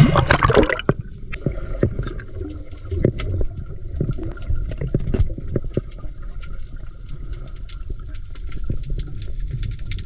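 Water splashing as the diver goes under, about the first second, then muffled underwater sound through the camera's waterproof housing: a steady low rumble with many scattered clicks and crackles.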